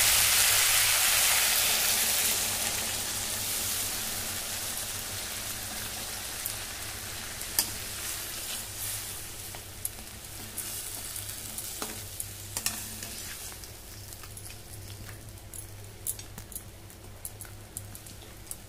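Water just added to a hot metal kadai of fried fish heads, onion and tomato, sizzling loudly at first and dying down steadily as the liquid heats through. From about six seconds in, a perforated metal spatula stirring the curry clicks and scrapes against the pan.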